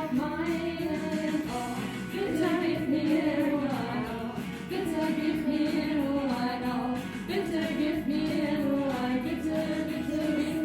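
Music with singing: a sung melody in long held phrases over backing music.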